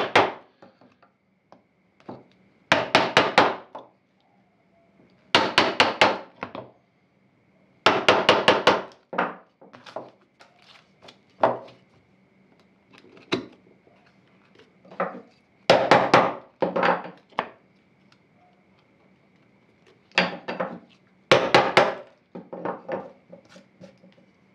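Chisel being struck with rapid mallet taps, chopping the waste out from between dovetail pins in a beech board. The knocks come in about seven quick bursts a couple of seconds apart, with a few single taps between.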